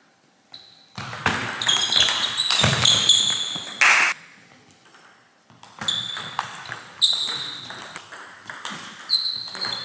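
Table tennis ball clicking off bats and table in quick runs, mixed with short high squeaks of shoes on the sports-hall floor. The clicking stops for a moment a little before halfway, then starts again.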